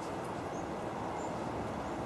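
Steady, even rushing background noise with a few faint, short high chirps.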